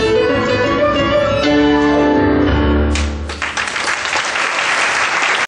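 Piano accompaniment playing the song's final held chords, then audience applause breaking out about three seconds in.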